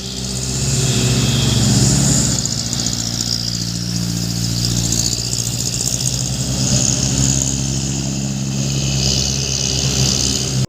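Truck engine running steadily, revving up over the first couple of seconds and then holding an even rumble.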